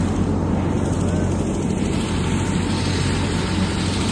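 Aircraft cabin noise: the steady drone of the engines heard from inside the cabin, with a constant low hum.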